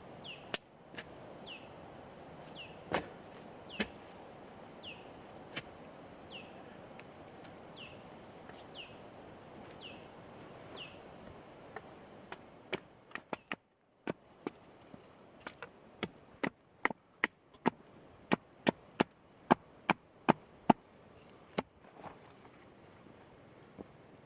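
Wood being chopped: sharp strikes, a few spaced apart at first, then a quick run of about two a second in the second half. In the first half a bird repeats a short falling chirp about once a second.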